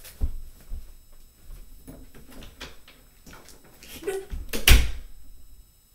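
Footsteps and handling thumps, then a door banging shut about four and a half seconds in, the loudest sound here.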